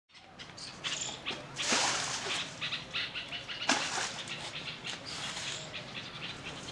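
Water tipped out of a metal pan, splashing into a leafy bush and onto the ground, with leaves rustling and crackling. There are two sharper, louder splashes about two and four seconds in.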